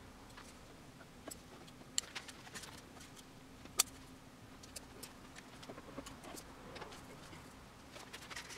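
Faint, scattered light clicks and taps of hands handling wooden shims and tools on a plywood cabinet base, over a faint steady hum. The sharpest click comes a little before the middle.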